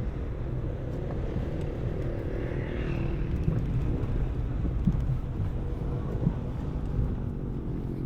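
Car driving on a rough road under construction: a steady low rumble of engine and tyres, with a few short knocks in the second half.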